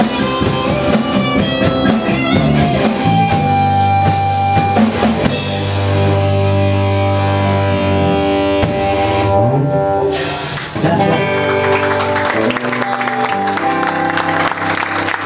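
A band playing a rock song with electric guitar and drum kit. The drums drop out about six seconds in under a held chord, then come back in around nine to ten seconds in with the full band.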